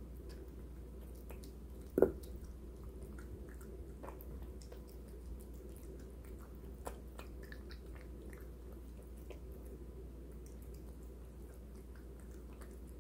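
Bengal cat eating from a stainless steel bowl: soft, irregular chewing and small wet clicks, with one sharp knock about two seconds in.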